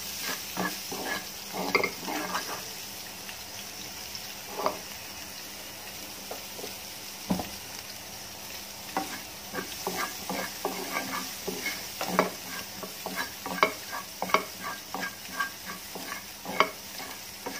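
Spatula scraping and knocking against a frying pan as shrimp and vegetables are stir-fried, over a steady sizzle of hot oil. The stirring comes in busy spells at the start and through the second half, with a sparser stretch in between.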